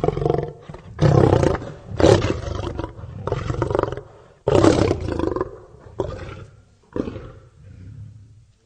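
Lion roaring: a bout of about eight deep roars and grunts roughly a second apart, the last few shorter and weaker.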